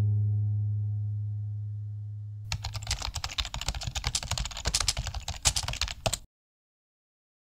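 A low music note dying away, then about four seconds of dense, rapid clicking like typing on a keyboard, which cuts off suddenly into silence.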